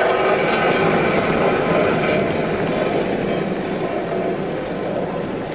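Steady engine and rolling noise of vehicles on a freshly graveled road, easing off slightly toward the end.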